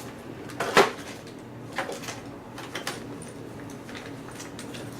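A few sharp clicks and clatters of small hard objects being handled, as in rummaging through a drawer of shims and lock parts; the loudest knock comes about a second in, with lighter ones near two and three seconds.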